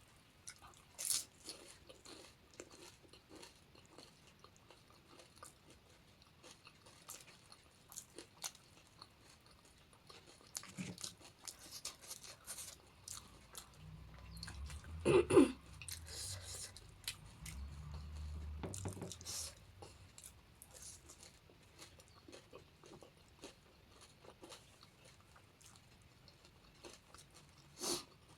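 Close-up chewing and crunching of panipuri: crisp hollow puri shells crackling between the teeth, with small sharp crunches scattered throughout. About fifteen seconds in there is one louder, brief mouth sound amid a few seconds of low rumbling.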